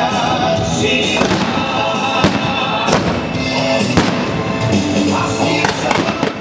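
Fireworks going off with a sharp bang every second or so, over loud music.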